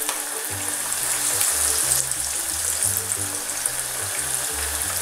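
Tuna croquettes deep-frying in hot sunflower oil in a cast-iron skillet: a steady, crackling sizzle. A background music track with a stepping bass line comes in about half a second in.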